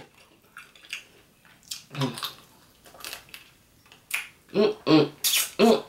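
Mukbang eating sounds: a woman sucking curry sauce off her fingers with wet lip smacks and clicks. Between them come several short hummed 'mm' sounds of enjoyment, the loudest near the end.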